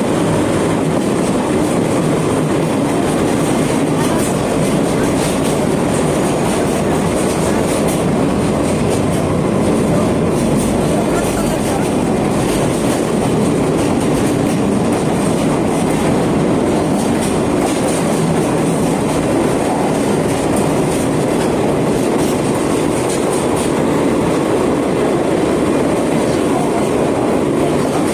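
Sagano Romantic Train running along the track, a steady rumble of wheels on rails with faint clicks of the rail joints, heard from inside the passenger car.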